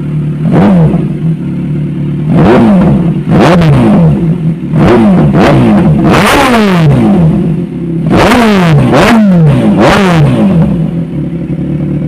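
Kawasaki Ninja 1000SX's inline-four engine, warmed up, idling through a new SC Project screen-type slip-on muffler and blipped repeatedly. About a dozen quick throttle revs each rise sharply and fall back to idle, with a longer rev about six seconds in.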